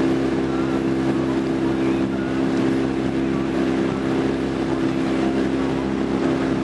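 Small motorboat's outboard engine running at a steady speed, an even hum that does not change.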